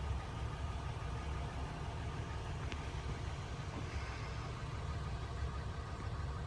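A car on the road: a steady low rumble of engine and road noise.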